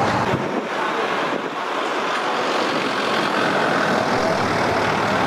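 Steady street traffic noise of passing vehicles and engines; the low rumble drops away about half a second in.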